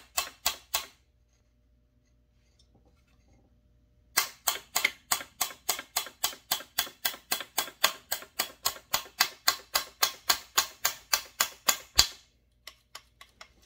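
Small hammer tapping a pin into a chainsaw's plastic rear handle to hold the throttle trigger. A few light taps, a pause, then a steady run of about four taps a second that ends in one harder strike.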